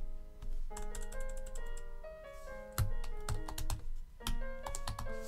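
Computer keyboard typing: a run of irregular key clicks as text is deleted and retyped, over quiet background music of held notes.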